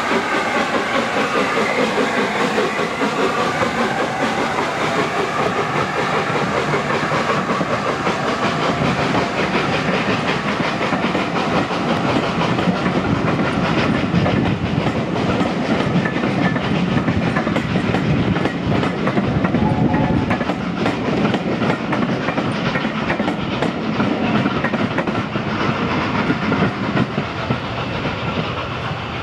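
LNER A4 Pacific steam locomotive passing with its train: in the first few seconds a several-note chime whistle slides down in pitch as it goes by, then the coaches run past with a steady rumble and wheels clattering over the rail joints.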